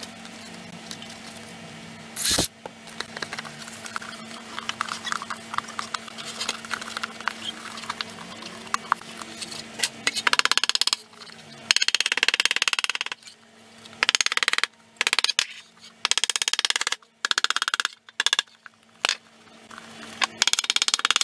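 Sheet of paper crinkling and rubbing as it is pressed and worked over the edge of a metal motorcycle air box to take a gasket tracing, with a sharp knock about two seconds in. Later come short bursts of rubbing and tapping broken by abrupt gaps, over a steady low hum.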